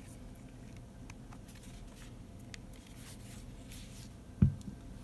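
Hands handling a Zenbre Z4 Bluetooth speaker: faint rubbing and small clicks as it is turned over, then one low thump about four and a half seconds in as it is set down on the desk.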